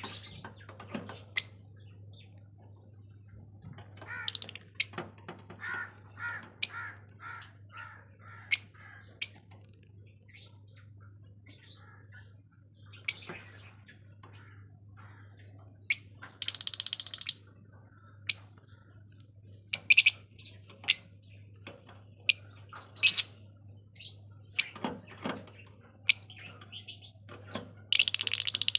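A pair of blue masked lovebirds calling with short sharp chirps, including a quick run of repeated chirps, broken twice by a harsh screech. A steady low hum runs underneath.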